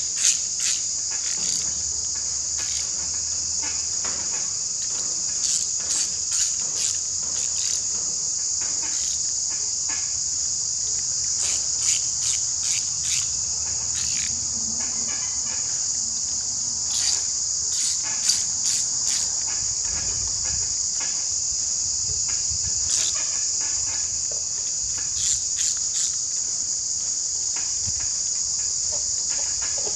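A steady, high-pitched insect chorus runs throughout. Over it come scattered sharp clicks of a hand socket ratchet tightening the bolts of an engine timing cover.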